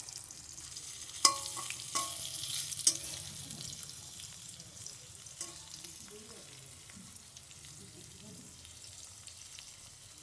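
Chicken tikki patties shallow-frying in oil in a kadai over a low flame, sizzling steadily. Three sharp knocks of a utensil against the pan come in the first three seconds, and the sizzle grows fainter toward the end.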